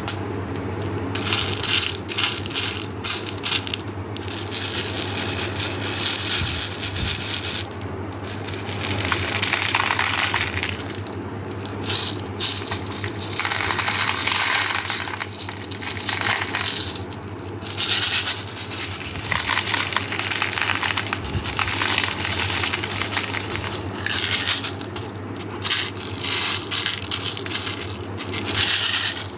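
Small hard candies clattering and crunching in a dense run of rapid clicks that swells and eases in waves.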